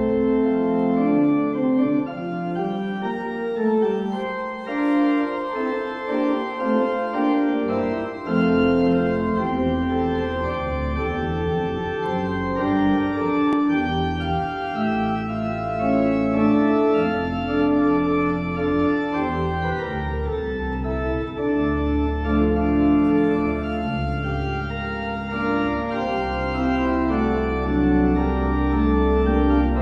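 Church organ playing the postlude at the close of the service: full sustained chords that change every second or two, with deep pedal bass notes coming in about eight seconds in.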